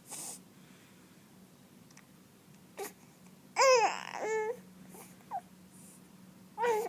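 A baby fussing: a high, wavering whine about halfway through, in two short parts, and another brief one near the end, with a few small short sounds in between.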